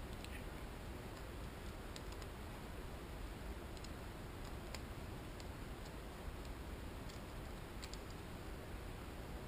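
Light, irregular clicks and taps of small metal parts and a hand tool being handled on the valve gear of a motorcycle's four-cylinder engine head, a few at a time, over a steady background hiss.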